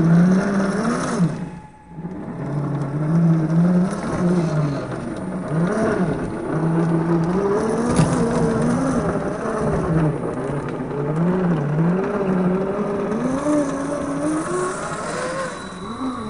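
Electric motor and geartrain whine of RC rock crawlers, a Traxxas TRX-4 among them, rising and falling in pitch with the throttle as they crawl over rock. The sound drops out briefly about two seconds in.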